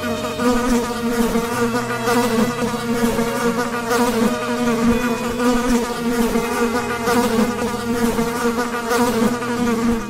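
A flying insect buzzing, one continuous buzz with a slightly wavering pitch.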